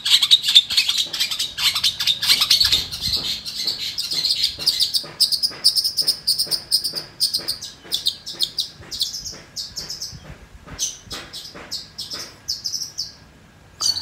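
Caged long-tailed shrike singing a rapid, chattering run of short high notes that thins out into separate chirps in the second half and stops shortly before the end.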